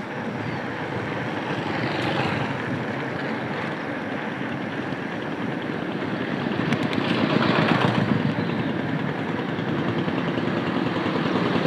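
Steady rush of road traffic and wind while cycling fast along a busy main road, swelling louder about two-thirds of the way through.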